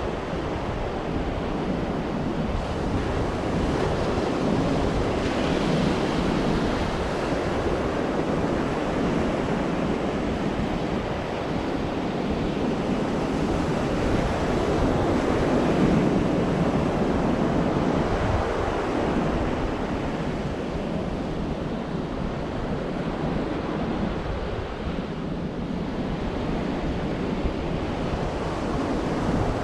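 Sea waves breaking and washing on a sandy beach, a steady surf that swells and eases every few seconds, with wind rumbling on the microphone.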